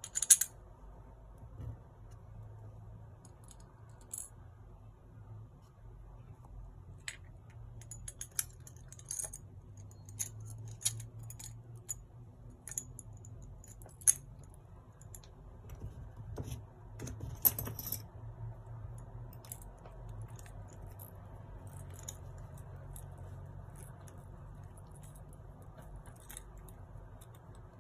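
Small brass and steel parts of a Stirling engine model kit clicking and clinking as they are handled and fitted together by hand: scattered light metallic ticks, with a sharp clink right at the start, another about halfway through, and a busier flurry of clinks a little past halfway.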